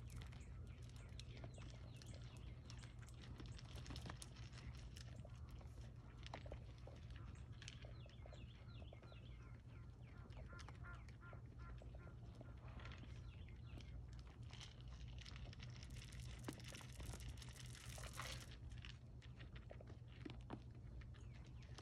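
Faint crunching and clicking of white-tailed deer chewing feed taken from a hand, with a brief rush of rustling noise late on.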